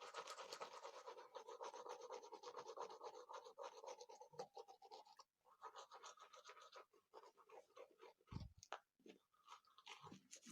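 A toothbrush scrubbing teeth in rapid back-and-forth strokes, faint and scratchy, with a brief break about halfway through. A short low thump comes late on.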